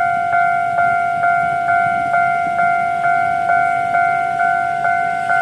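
Railway level-crossing warning bell ringing while the barriers are down for an approaching train: an even ding struck a little over twice a second, each strike ringing on into the next.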